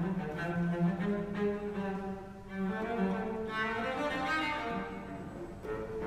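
Solo cello played with the bow, a melodic line of notes that change every fraction of a second.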